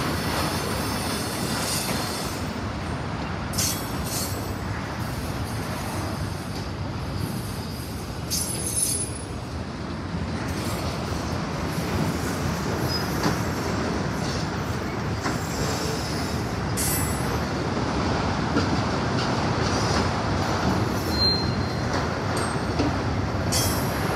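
Autorack freight cars rolling past on steel rails: a steady rumble of wheels, with brief high-pitched wheel squeals several times.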